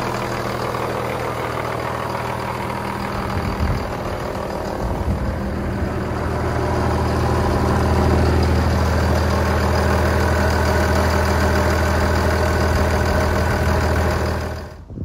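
Huddig 1260C City backhoe loader's diesel engine idling steadily, heard close to the open engine compartment. It grows louder around the middle and cuts off just before the end.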